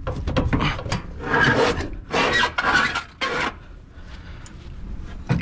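Scraping and rubbing in several irregular bursts over the first three seconds or so as a heavy 3-horsepower electric blower motor is handled and shifted inside a fan coil unit, over a low steady hum.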